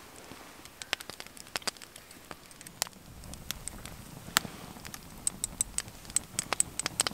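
Wood fire crackling in a twig stove: sharp, irregular pops and snaps, with a low rumble coming in about three seconds in.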